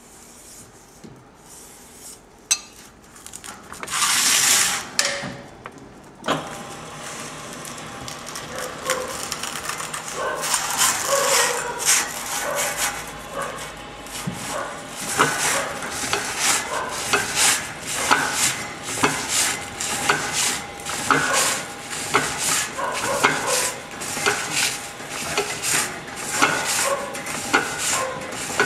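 Wide steel band saw blade being worked by hand on a metal bench: a louder rushing scrape of about two seconds about four seconds in, then steady metal-on-metal scraping and rubbing with frequent light clinks.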